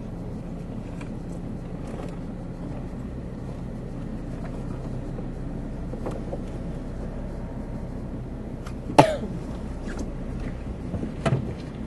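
Vehicle engine running with a steady low hum, with a sharp knock about nine seconds in and another near the end.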